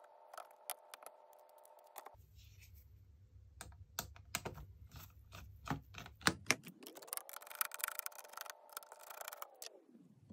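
Irregular light plastic and metal clicks and taps from a laptop's internal parts being handled, as the battery is lifted out. Near the end, a thin whine rises in pitch, holds for a couple of seconds, then falls away.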